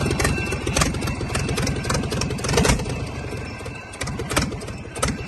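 155 engine running, with a fast, even chain of firing strokes. It turns quieter and slower from about three and a half seconds in.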